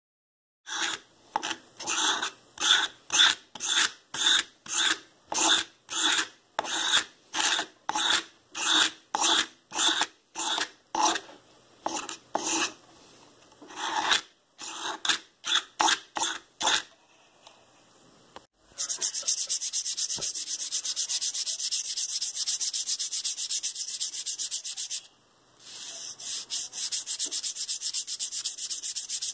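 A thin wooden strip being shaped by hand with a file or abrasive block. It starts with separate back-and-forth scraping strokes, about two a second, then after a short pause becomes fast, continuous rasping in two long runs.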